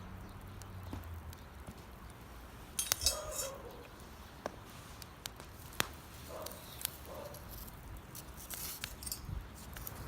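Wood campfire crackling, with sharp irregular pops from wet, moisture-heavy firewood; a quick cluster of pops about three seconds in and single loud snaps a little later.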